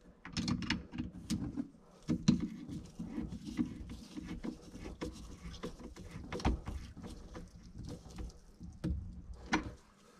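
Irregular clicks, taps and rustling of hands fitting a hose clamp back onto a dishwasher drain hose at the garbage disposal.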